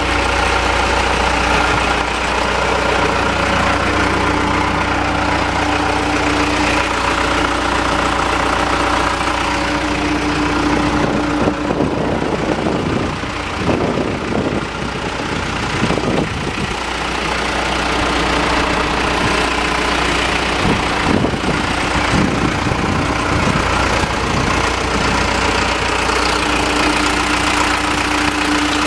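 The diesel engine of a 2000 John Deere 310SE backhoe idling steadily. The sound turns uneven for a few seconds about halfway through, and again briefly a few seconds later.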